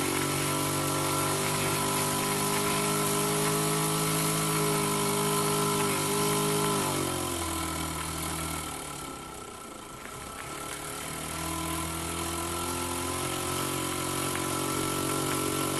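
Small brass V-twin model steam engine running on steam from an electric steam cleaner turned down low, with the cleaner's pump: a steady mechanical hum that drops in pitch about seven seconds in, fades briefly, then picks back up.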